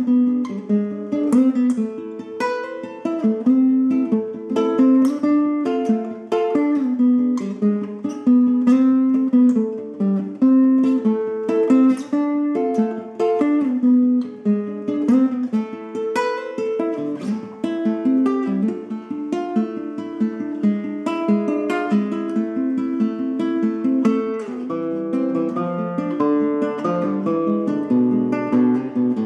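Nylon-string classical guitar played fingerstyle, a Latin blues instrumental in A minor: a continuous run of plucked melody notes over bass notes, with strummed chords here and there.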